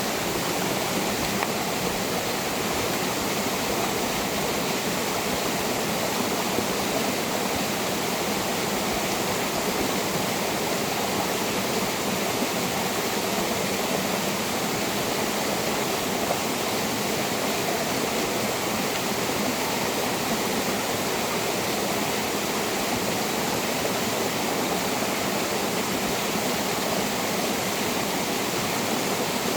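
Waterfall: water falling and rushing in a steady, loud roar of noise with no change in level.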